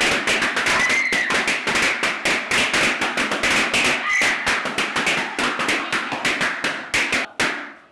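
Many latex balloons popping in quick, overlapping succession, several loud bangs a second, as a room full of balloons is burst by several people at once; the popping thins out briefly just before the end.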